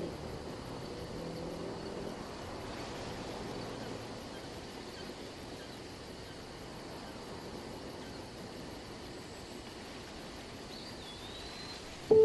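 Quiet forest ambience: a distant car engine fades away over the first couple of seconds, leaving a steady outdoor hush with a single short bird call about eleven seconds in. Music with chiming mallet tones comes in at the very end.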